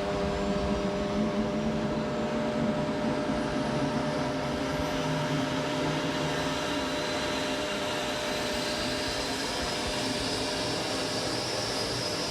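Jet aircraft engine running steadily, with a high turbine whine that rises slowly in pitch through the second half.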